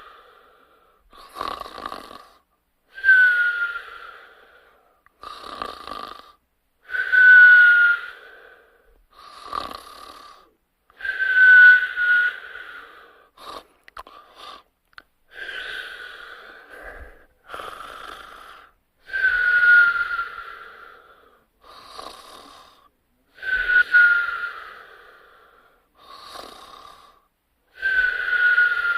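Slow, regular snoring with a whistle. About every four seconds a loud snore carries a high whistle that slides slightly down in pitch, with a softer breath in between.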